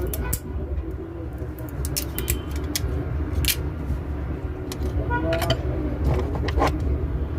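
Scattered small sharp clicks and taps from handling phone parts and tools on the bench, clustered in the first half and again past the middle, over a steady low rumble. A faint voice is in the background.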